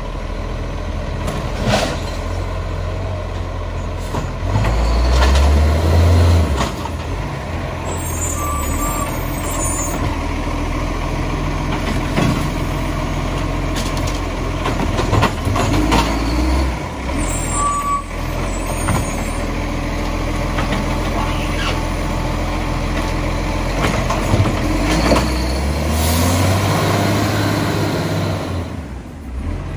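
Iveco Acco side-loader garbage truck's diesel engine running and revving twice as the hydraulic arm works, with knocks and clatter as a wheelie bin is grabbed, tipped into the hopper and set back down. Two short beeps sound along the way.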